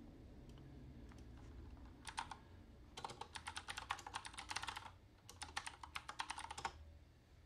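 Typing on a computer keyboard: a brief couple of keystrokes about two seconds in, then two quick runs of key presses with a short pause between them.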